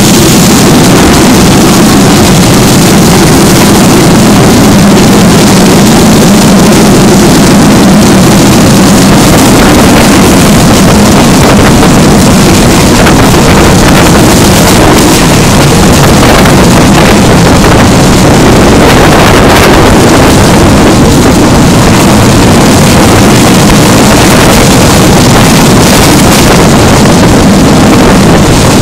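Loud, steady rushing noise of a moving passenger train heard from beside the carriage, with wind buffeting the microphone.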